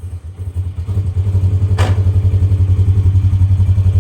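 A motor running with a fast, even pulse, building over the first second and then steady, with a single metal clank about two seconds in.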